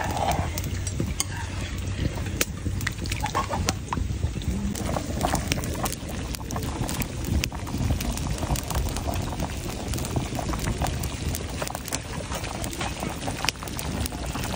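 Food bubbling in a cooking pot: a steady hiss with many small crackles and pops.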